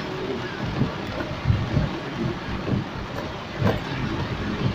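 Heavy rain on a moving car, heard from inside the cabin: a steady hiss of rain on the roof and windshield, with irregular low thumps about once a second.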